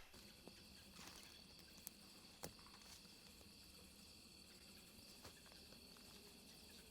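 Faint night insects, crickets, chirring steadily, with a couple of soft clicks about two and two and a half seconds in.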